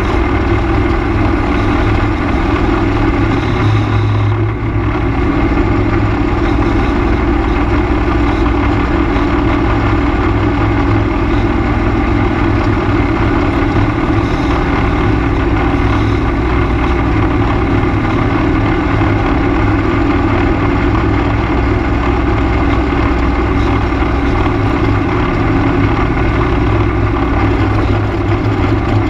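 ATV engine running steadily while the quad travels along a gravel road, with a brief dip in level about four and a half seconds in.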